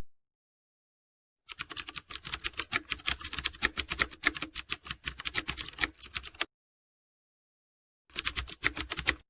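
Rapid typing clicks, many keystrokes a second in a run of about five seconds, then a second, shorter run near the end.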